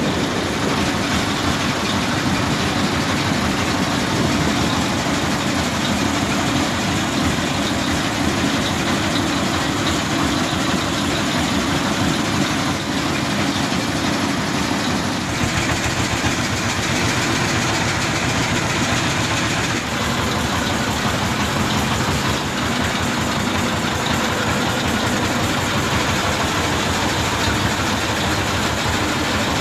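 Single-cylinder S1115 diesel engine running steadily with a fast, even beat, driving a wooden fishing boat under way.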